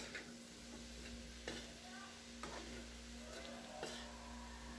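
Faint sizzling of pechay (bok choy) being stir-fried in a pan, with a few light clicks of the utensil against the pan as the greens are tossed.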